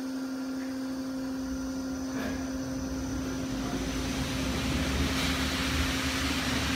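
Disco turntable amusement ride running: a steady hum from its drive machinery, with a low rumble and a rushing noise building from about a second and a half in as the platform turns.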